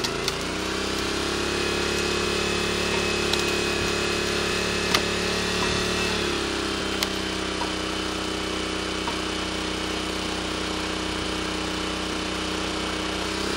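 Honda 5.5 hp single-cylinder petrol engine running steadily to power a log splitter's hydraulic pump. Its pitch shifts lower about halfway through as the ram's load changes. A few sharp cracks come from the log splitting on the blades.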